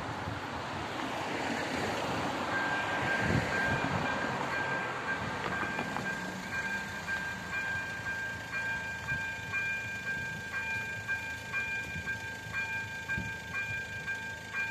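A car drives over the level crossing, and about two and a half seconds in the Czech level crossing's electronic warning bell starts, a steady high ringing chime that pulses regularly and keeps going: the crossing has been activated for an approaching train.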